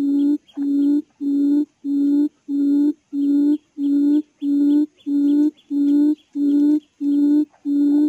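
Recorded quail call played on a loop as a trapping lure: a low, steady-pitched hoot repeated evenly, about one and a half hoots a second, each about half a second long.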